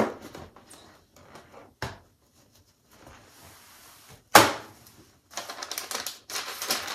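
A cardboard wig box being opened by hand: a few knocks and taps of the lid, one sharp knock about four seconds in the loudest, then tissue paper rustling and crinkling from about five seconds in.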